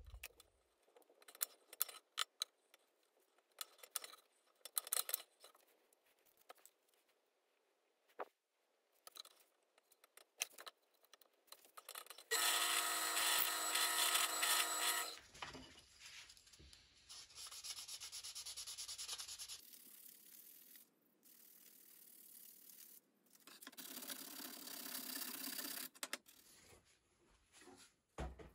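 Workshop handling and scraping noises, then a bench drill press running and boring into a wooden knife-handle scale for about three seconds, its motor a steady hum under the cutting noise. Stretches of rubbing, sanding-like noise follow.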